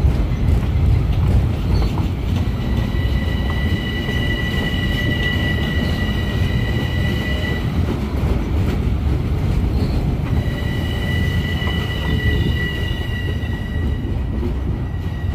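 Long Island Rail Road M7 electric train moving past, its wheels rumbling steadily on the rails. A high, steady squeal comes in twice, for about five seconds each time.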